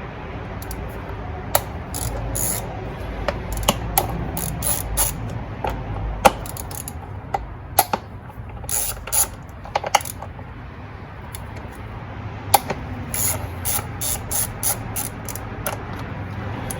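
Hand ratchet with a 10 mm socket clicking in short bursts of rapid clicks as the ignition-coil hold-down bolts are loosened.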